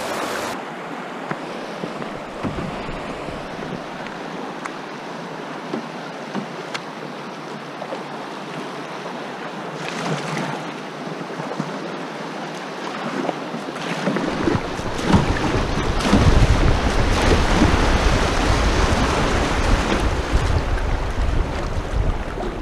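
Fast shallow river water rushing over a gravel riffle. From about two-thirds of the way in, wind buffets the microphone and adds a loud low rumble over the water.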